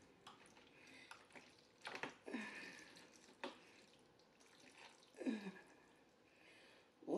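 A fork working through creamy linguine Alfredo in a plastic takeout tray: a few faint, short wet sounds from the sauced noodles and light clicks of the fork, spread over several seconds.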